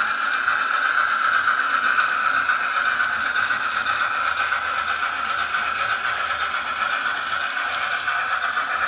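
HO scale brass Norfolk and Western K-2a 4-8-2 model steam locomotive running with its train, its Soundtraxx Tsunami sound decoder playing a steady steam hiss through the small onboard speaker, over the rattle of the wheels on the rails.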